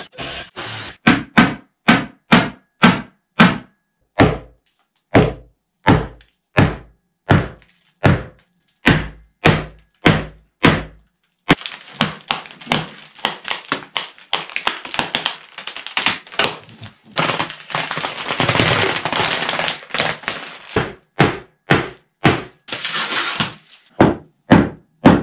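Hammer blows on the wooden side boards of a casting mould, knocking it loose from a cured epoxy slab: sharp knocks about two a second. About halfway through the blows come faster, with a rattling, scraping and cracking noise between them.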